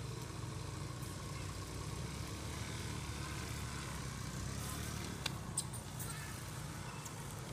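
Steady low engine rumble from a motor vehicle running nearby, with two faint sharp clicks a little after five seconds in.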